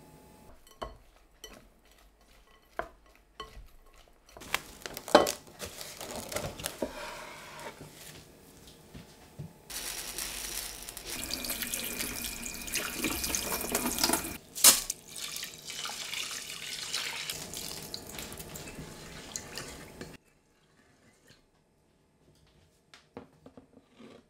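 Tap water running onto brown rice in a stainless steel mesh sieve to rinse it, a steady splashing hiss for about ten seconds with one sharp metal clatter partway through. Before it there are scattered small clicks and rattles of kitchen handling, and after it the water stops suddenly.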